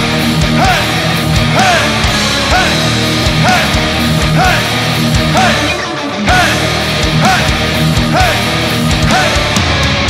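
Heavy metal band playing live with electric guitars, bass and drums, in an instrumental passage without vocals. A high note bends up and back down over and over, about every two-thirds of a second.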